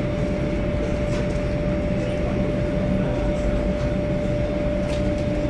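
Steady low rumble of a Boeing 737-800's cabin, with a constant mid-pitched whine held through it.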